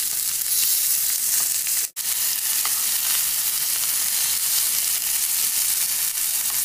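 Masala-coated whole fish shallow-frying in hot coconut oil in a nonstick pan: a steady sizzle, with light spoon scraping as the fish are turned over. The sound drops out for an instant about two seconds in.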